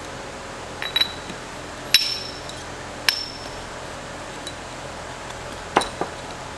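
Metal parts and tools clinking against each other during a transmission teardown: four sharp metallic knocks, each with a short ring, the first three about a second apart and the last near the end. A steady fan hum runs underneath.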